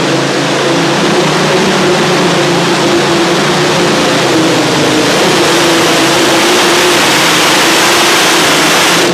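Light Modified pulling tractor's racing engine running under full load as it drags the weight-transfer sled. The sound is loud and unbroken at a steady, high pitch.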